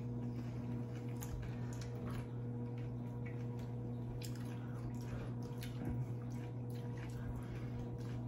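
Wet chewing and mouth sounds of people eating creamy pasta, with scattered light clicks of forks, over a steady low hum.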